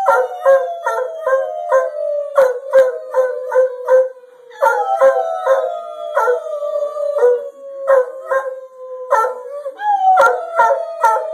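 Dog howling: three long howls, each sliding slowly down in pitch. The second starts about four and a half seconds in and the third near the end, with short choppy sounds, about three a second, running over them.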